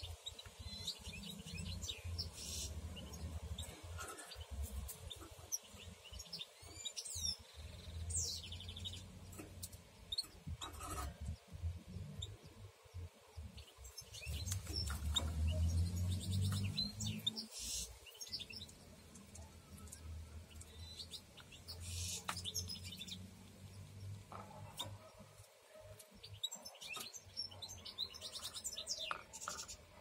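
Canaries chirping in short, scattered calls and quick rising and falling notes, over a low rumble that swells about halfway through.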